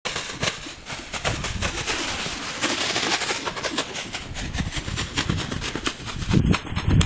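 Hooves of an Arabian horse moving loose over a sand arena: a run of irregular dull strikes over a steady rushing noise.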